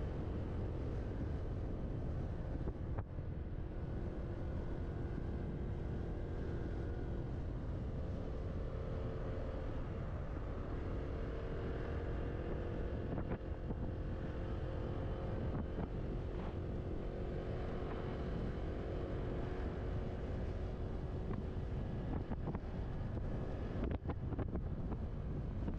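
Wind buffeting the microphone of a moving scooter, over the scooter's motor running as a faint hum that drifts slowly in pitch.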